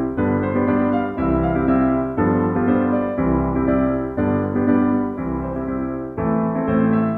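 Background music: electric piano playing chords that change about once a second.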